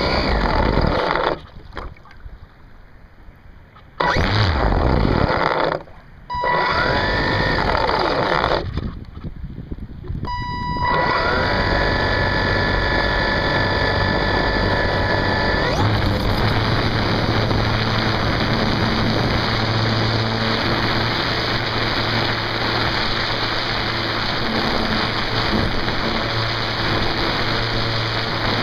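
RC floatplane's motor throttled up in short bursts with quiet gaps, then spinning up with a rising whine about ten seconds in and running steadily at full throttle for the takeoff run, with water and wind rushing past the onboard microphone.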